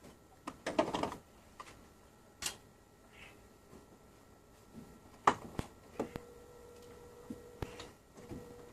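Clicks and knocks of plastic as the outer casing of a split-system air conditioner's indoor unit is unclipped and lifted off, with a quick run of clicks about a second in and scattered single knocks later.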